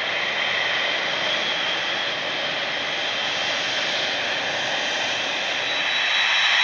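Boeing 777's GE90 turbofan engines at taxi power: a steady high whine over a rushing jet noise. Near the end it gives way to a louder jet.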